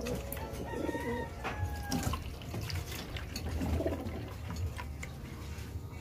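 Domestic pigeons cooing several times, with liquid being poured from a plastic bottle into a plastic drinker already holding water.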